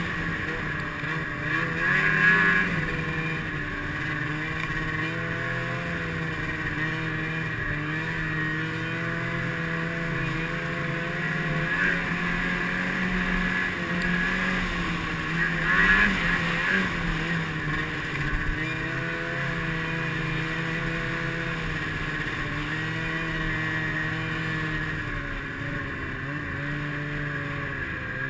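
Snowmobile engine running under way, its pitch rising and falling with the throttle, with louder surges about two seconds in and again about sixteen seconds in.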